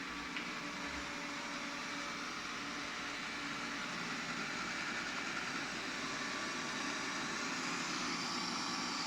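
Xiaomi Essential robot vacuum running: the steady whir of its suction fan and motors, slowly getting a little louder.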